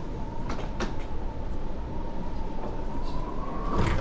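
Steady low rumble and a constant high hum inside a cruise ship's corridor, the background noise of the ship's machinery and ventilation, with two light clicks about half a second in; the hum rises slightly in pitch near the end.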